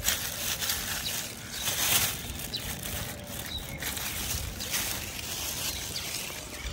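Thin black plastic bag being handled and crumpled close to the microphone, a continuous crinkling rustle with small crackles.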